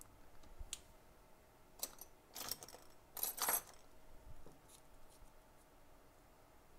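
A few short, faint metallic clinks and rattles of small hand tools being handled on a repair bench, the loudest just past halfway.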